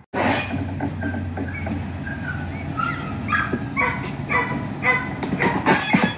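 Narrow-gauge diesel locomotive running steadily as it draws up to a crossing. Short high calls come in over the engine about halfway through, then sharp bursts repeat quickly near the end.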